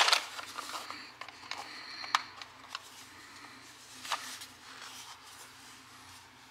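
Handling of a plastic BB-gun magazine and its clear plastic packaging on a hard counter: a sharp clatter at the start, then scattered plastic clicks and rustling, with sharp clicks about two and four seconds in.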